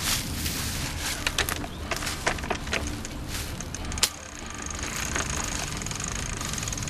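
Dead oak wood cracking and splintering: a quick run of sharp snaps, then one sharp crack about four seconds in.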